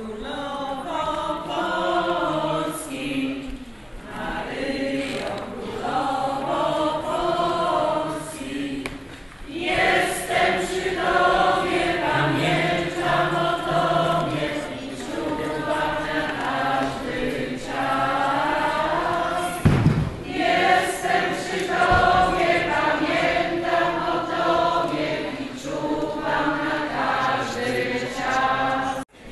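Choir singing a hymn in phrases, several voices together. One brief thump comes about two-thirds of the way through.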